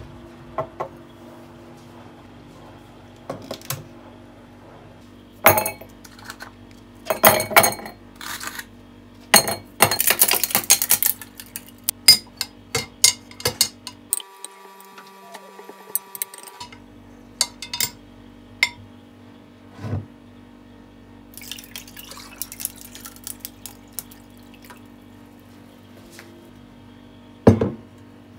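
Kitchen clatter: dishes, pans and cutlery knocked and set down one after another, with water running briefly about ten seconds in, over a steady low hum.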